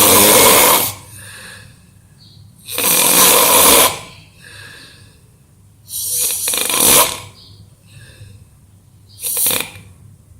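A person snoring heavily in deep, exhausted sleep: a loud rasping snore about every three seconds, four in all, with quieter breathing between.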